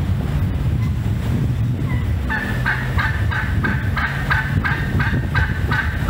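Wild turkey calling in a run of short yelping notes, about three a second, starting about two seconds in, over a steady low rumble.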